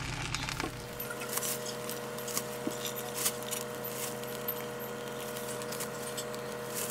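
Thin plastic grocery bag rustling as it is handled and opened, with a few light clicks and clinks, over a faint steady hum.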